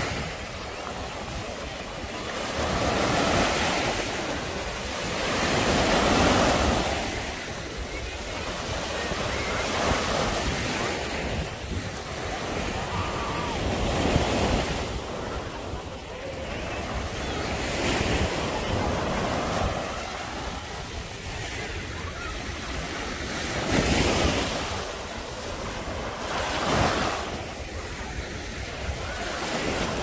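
Small waves breaking and washing up a sandy shore, the surf rising and falling every few seconds, with wind buffeting the microphone.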